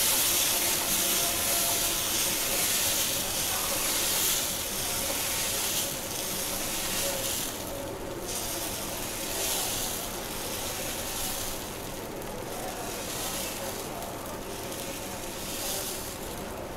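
Semolina (rava) uttapam batter sizzling on a very hot tawa as it is ladled on and spread into a round. The hiss comes in waves with the spreading strokes and slowly dies down.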